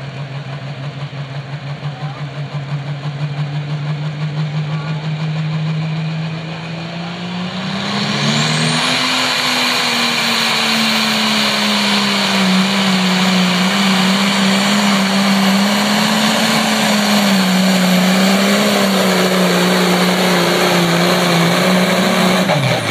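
Case IH Pro Stock pulling tractor's turbocharged diesel engine idling with a rhythmic chug, then going to full throttle about seven seconds in with a rising turbo whistle. It runs hard under load for about fourteen seconds, the pitch wavering as it pulls the sled, then drops off sharply near the end as the throttle comes off.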